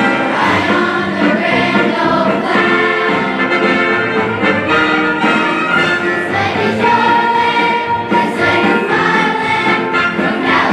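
Children's choir singing with instrumental accompaniment, steady and continuous.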